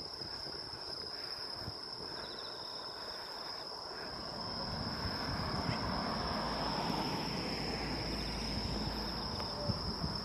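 Insects calling in one steady high-pitched tone, with a second, pulsed insect chirp now and then. A broad rushing noise grows louder from about four seconds in.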